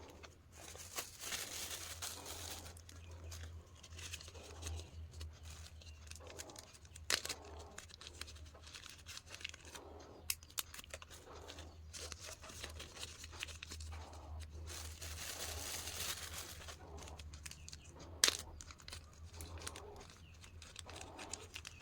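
Crinkling and rustling of plastic snack packets being handled, with scattered sharp clicks and a low steady hum underneath.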